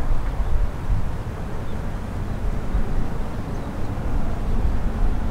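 Low, unsteady rumble of a distant Boeing 767-300 airliner's jet engines as it approaches to land, with wind noise on the microphone mixed in.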